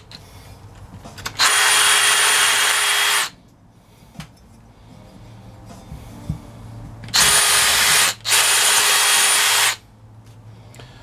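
Power drill running in three bursts, about two seconds, then two shorter ones close together, drilling out small rivet holes in a headlight bucket mount to take 1/4-20 screws.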